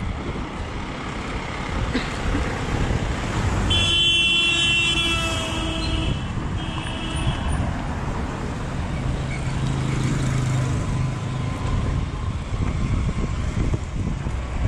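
Street traffic noise with a vehicle horn honking about four seconds in for roughly two seconds, then a second, shorter honk.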